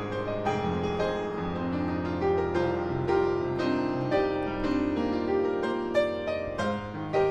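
Upright piano playing a slow passage of held notes and chords that change every second or so.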